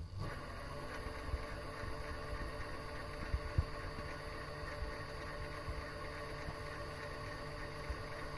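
Mini lathe switched on and running steadily, the motor and spindle gear train giving a steady machine hum and whine that starts abruptly, with a couple of light ticks a little past the middle.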